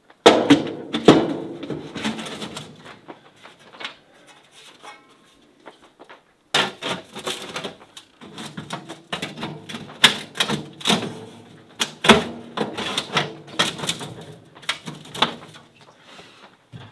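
Sheet-metal stovepipe sections and cap on a wood stove clanking and rattling as they are handled and fitted back together: a busy run of sharp metallic knocks, with a quieter pause a few seconds in before the clatter starts again.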